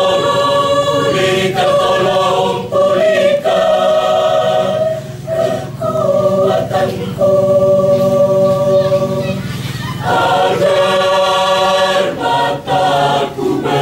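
Church choir singing, holding long sustained chords that change every few seconds, with short breaths between phrases.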